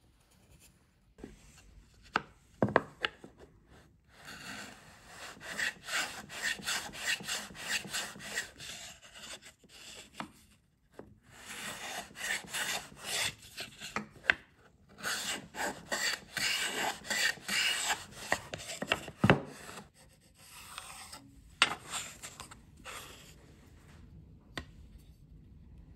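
A steel chisel paring a wooden joint by hand, in runs of quick scraping strokes that shave the wood, with a few sharp knocks in between.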